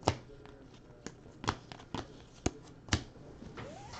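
2019 Bowman baseball cards being handled and laid onto a stack by hand: a series of about six sharp clicks and snaps, roughly one every half second, the first the loudest.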